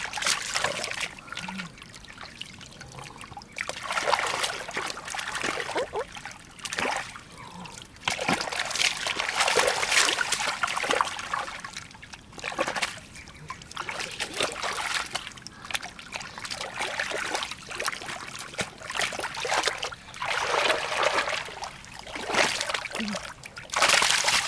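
Water splashing and trickling in irregular bursts of a second or two, with quieter gaps between.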